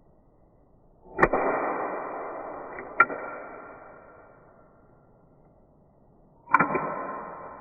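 The action of a Marushin S&W M10 gas revolver, a plastic toy gun, tripped twice: each time a sharp snap followed by a ringing that dies away over a few seconds, with a single click in between.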